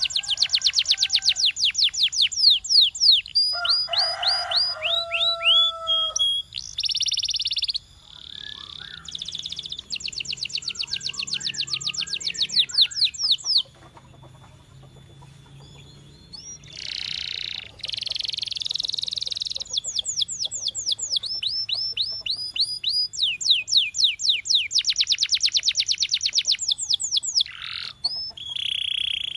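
Canary singing a song made of fast trills of repeated sweeping notes, one roll after another, with a short break of a few seconds near the middle.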